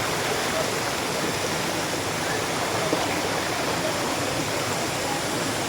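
Steady rush of a rocky mountain stream running high with floodwater, its water pouring over rocks and small falls.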